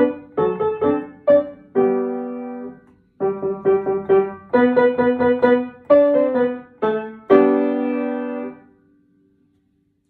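Upright piano playing a simple beginner piece: quick, short, repeated notes, a held chord about two seconds in, a brief pause, more quick notes, then a final chord about seven seconds in that rings out and dies away.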